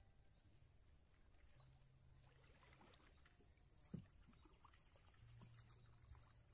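Faint trickling and splashing of water from a paddle dipping beside a small plywood boat, with one short knock about four seconds in; otherwise near silence.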